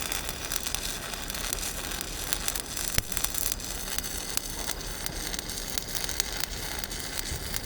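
Stick-welding arc on a 7018 electrode, crackling and sizzling steadily, with one sharper crack about three seconds in.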